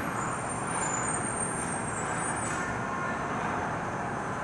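Steady background din of a large indoor model railroad exhibit, with model trains running on the layout.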